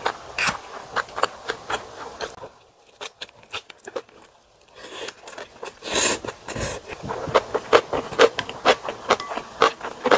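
Close-up eating sounds of spicy ramen: repeated wet chewing and mouth smacks. About six seconds in there is a loud slurp of broth from a wooden ladle.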